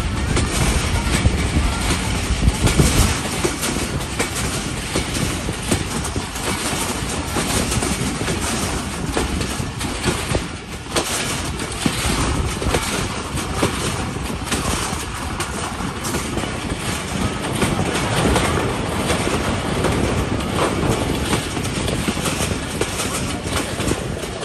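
Hazara Express passenger train running along the track: steady wheel-and-rail noise with a rapid, continuous clatter.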